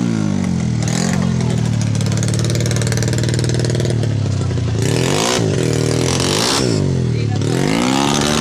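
130cc drag-race motorcycle engine revving at the start line. It runs steadily for about four seconds, then is blipped repeatedly, the revs rising and falling about every second and a half.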